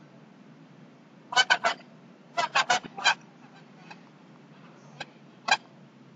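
Domestic fowl calling in short clucking bursts: three quick calls about a second in, four more around two and a half seconds, then two single calls near the end.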